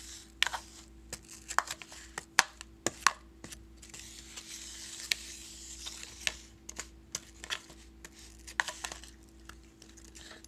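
A metal spoon stirring apple wedges in a bowl, with irregular clicks and knocks as the spoon hits the bowl and the slices.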